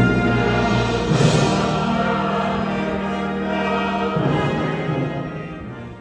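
Sacred music from a choir with accompaniment, holding long sustained chords that change about a second in and again about four seconds in, then dying away near the end.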